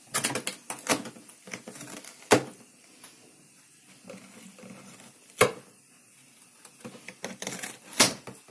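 A cat biting and chewing the edge of a cardboard box: sharp crunches and crackles of the cardboard, a quick run of them in the first second or so, single loud crunches about two and five seconds in, and another flurry near the end.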